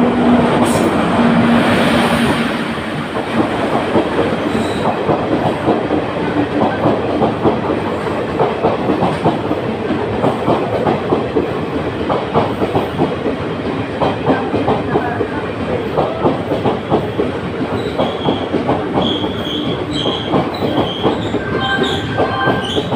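Passenger train hauled by an electric locomotive running through a station at speed. A loud rush as the locomotive passes in the first couple of seconds, then a steady rapid clickety-clack of the coaches' wheels over the rail joints.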